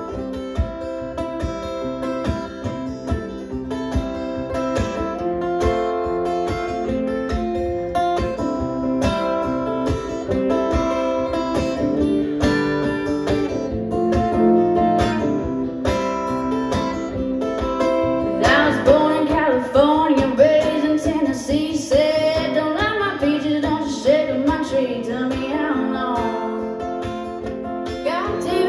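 Solo acoustic guitar strummed and picked in a country-blues style, an instrumental break with no voice. About two-thirds of the way through, a woman's singing comes in over the guitar.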